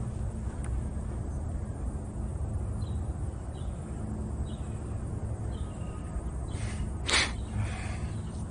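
Outdoor ambience: a steady low rumble with a few faint, short, high chirps, and a short harsh sound about seven seconds in that is the loudest thing heard.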